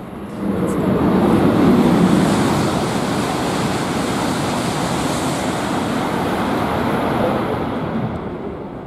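E5 series Shinkansen passing through the station at high speed without stopping: a loud, steady rush of wind and wheel-on-rail noise. It swells about half a second in and fades away near the end.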